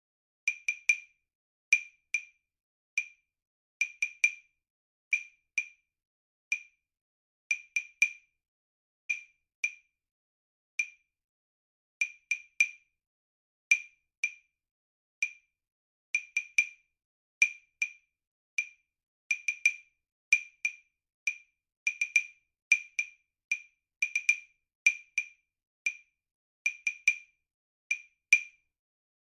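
Wood block clicks playing a syncopated rhythm pattern, with no other instruments. The pace is uneven, with strokes sometimes in quick pairs and coming closer together in the second half, as the exercise slows down and speeds up.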